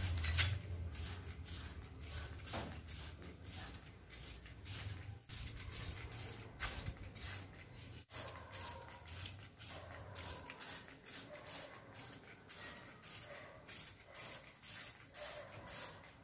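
Hand trigger spray bottle being squeezed over and over, each pull a short hiss of spray, about two a second, with a low rumble under the first part.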